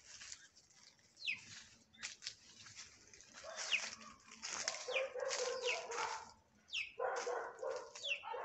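Chicks peeping in short falling chirps, several times, among louder rough bursts of other animal sound in the middle.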